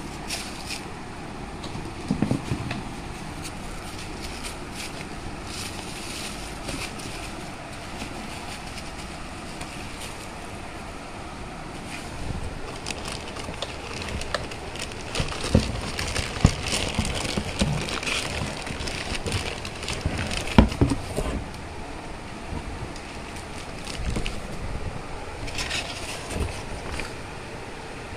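Plastic wrapping crinkling and rustling as wrapped parts are handled in a cardboard box, with a few louder knocks about two seconds in and again past the middle.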